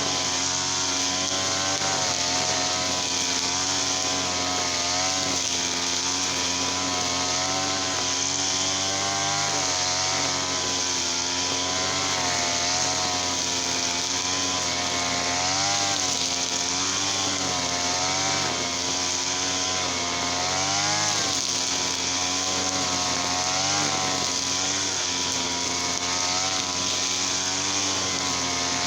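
Small petrol engine running continuously at a fairly steady speed, its pitch wavering slightly up and down, with short surges in speed about halfway through and again about two-thirds of the way through.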